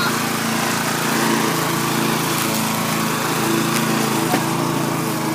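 Petrol lawn mower engine running steadily. It is smoking heavily, which the owners put down to petrol having spilled into the engine when it was tipped over.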